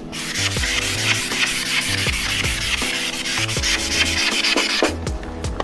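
A board eraser rubbing steadily across a chalkboard, stopping about five seconds in, with background music underneath.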